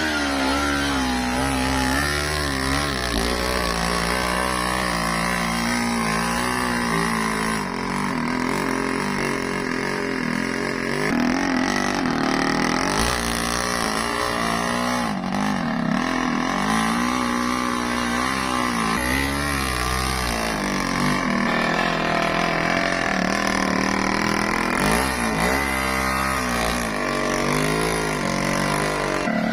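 Yamaha two-stroke motorcycle engine running and revving, its pitch rising and falling repeatedly as it hauls an overloaded load of timber.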